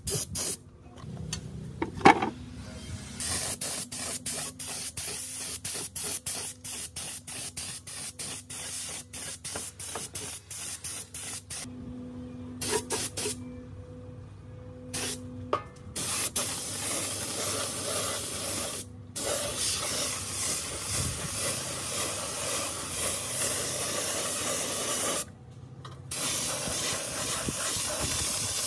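Air spray gun spraying paint: a hiss broken into quick short bursts, then longer steady sprays with a few brief stops. A single sharp knock about two seconds in.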